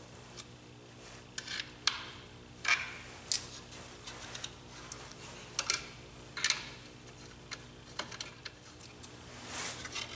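Irregular plastic clicks and short scrapes of a Garmin Echomap chart plotter being worked and seated into its handlebar mount bracket, over a faint steady hum.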